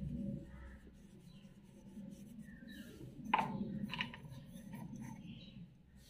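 Faint rubbing and scraping at an aluminium cooking pot while biryani masala is sprinkled by hand over the rice layer, with one sharp clink a little over three seconds in.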